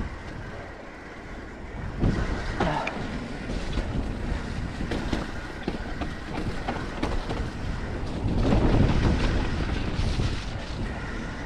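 Wind rushing over the camera microphone and mountain bike tyres rolling over a muddy dirt trail, with many short knocks and rattles from the bike over bumps, loudest about eight to ten seconds in.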